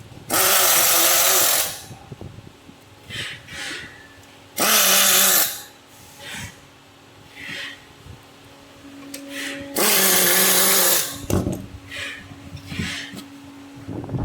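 Electric screwdriver driving screws, running in three bursts of about a second each, with small clicks and rattles of handled parts between them.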